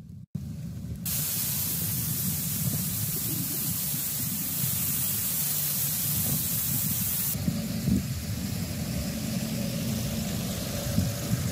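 Hurricane Elsa's storm wind rushing and buffeting the microphone: an even hiss over a low rumble that sets in about a second in, brightest for the first several seconds and a little duller after about seven seconds.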